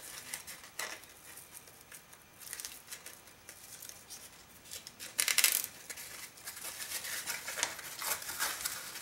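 Glitter-vinyl-covered grosgrain ribbon rustling and crinkling as it is folded back and forth by hand, with a louder brief rasp about five seconds in.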